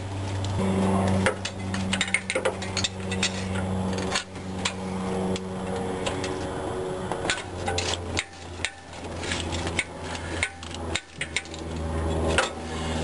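Socket wrench and extension clicking and clinking against metal while working loose a spark plug, irregular sharp taps throughout. A steady low hum runs underneath.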